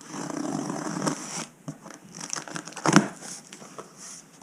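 Packaging being opened and handled, crinkling and rustling in two stretches, with a sharp knock about three seconds in.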